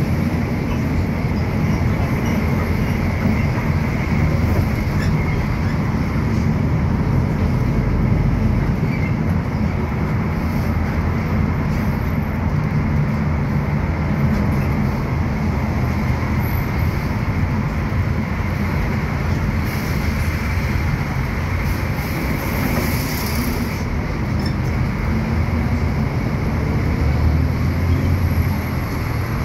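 Cabin noise of a city bus driving along: a steady low engine and road rumble.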